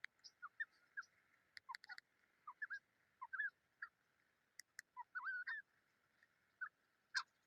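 A desi teetar (grey francolin) pair calling: a faint run of short chirping notes that bend up and down, coming irregularly, with a few sharp clicks among them.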